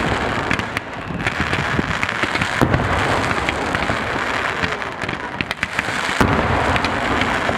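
Aerial fireworks going off in quick succession: a dense, continuous crackle of many sharp pops, with a few louder bangs among them.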